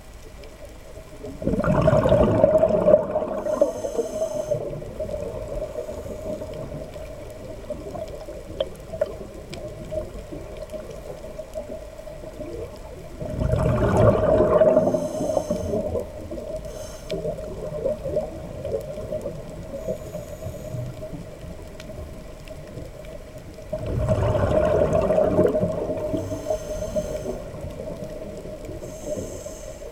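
Scuba diver's regulator exhaust bubbling underwater on three exhalations, about eleven seconds apart, each a loud gurgling rush of bubbles, over a steady faint hum.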